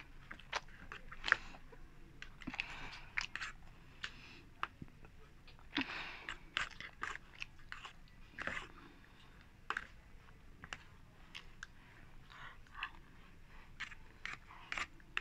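Close-miked eating: chewing and crunching mouth sounds, with small clicks and scrapes of a spoon and fork picking food from cardboard boxes.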